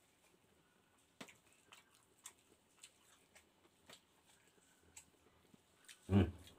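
Close-miked mouth sounds of a person eating noodles with his fingers: soft wet smacks and clicks about every half second. Near the end comes a short, louder vocal sound like a hum.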